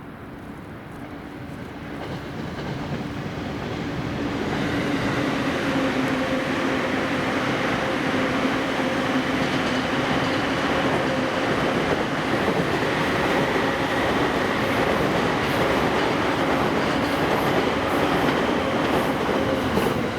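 Electric commuter train approaching and running past, growing louder over the first few seconds and then staying loud and steady, with a steady whine running through the rolling noise.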